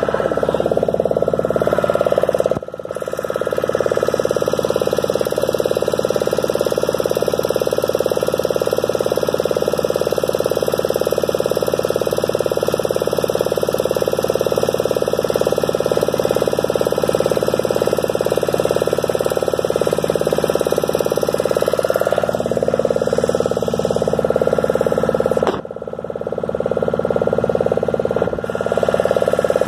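Motor of a small fibreglass boat running steadily under way, with a constant hum and a brief drop in level twice.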